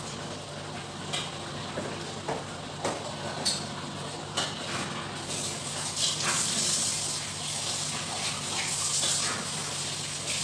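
Food sizzling in a pan on a gas hob, the sizzle starting about halfway through and growing. It follows a few light clicks and knocks of pans and utensils.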